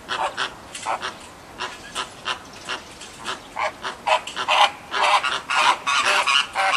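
American flamingos calling: a run of short calls, about two or three a second, some overlapping, busier in the second half.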